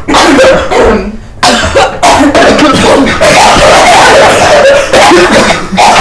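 A person coughing loudly and harshly, with a short break about a second in and then continuous coughing.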